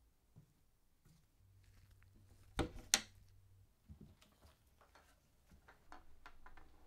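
Wooden bar billiards table being handled: two sharp clacks close together about two and a half seconds in, then a string of lighter clicks and knocks as its hinged top is lifted open.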